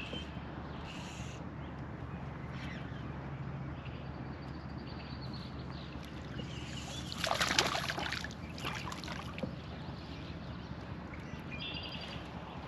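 Steady low background of water and boat noise on a lake, with a brief louder rush of noise a little past halfway. A bird chirps briefly near the end.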